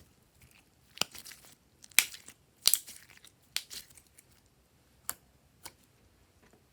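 Glossy slime being worked by hand, giving about six sharp pops and crackles, some with a short crackling tail, loudest in the middle and sparser toward the end.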